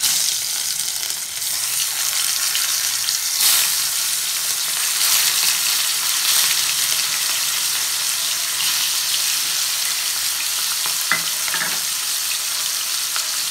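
Katla fish steaks rubbed with salt and turmeric sizzling in hot oil in a kadai as they are laid in one by one. The frying hiss starts sharply and swells a few times as more pieces go in.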